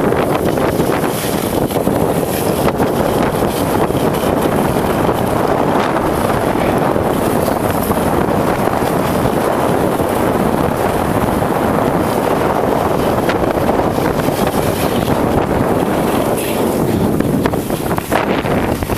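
Steady rushing noise of wind buffeting the microphone and skis sliding over packed snow while skiing downhill.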